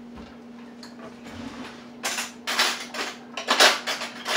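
Kitchen utensils and dishes clattering and rattling in a quick run of knocks that starts about two seconds in, over a steady low hum.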